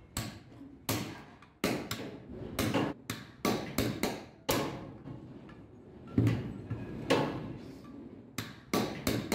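Hand hammers striking a chisel on steel truck brake shoes: sharp metallic clanks at an irregular pace, roughly two a second, each with a short ring.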